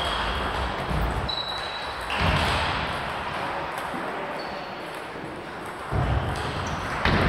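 Table tennis play: celluloid ping-pong balls clicking off tables and bats, with a few short high squeaks and a louder sharp hit near the end.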